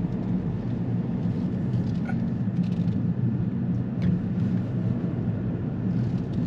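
Steady road and engine rumble inside a moving car's cabin, with a couple of faint clicks.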